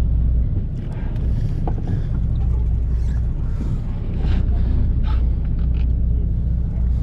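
A fishing boat's engine running with a steady low drone, and a few faint clicks and knocks on deck.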